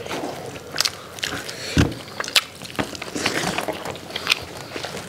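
Close-miked eating sounds from several people eating with their hands: chewing, lip smacks and wet mouth clicks as they tear into fried whole chicken and rice. A single dull thump comes a little under two seconds in.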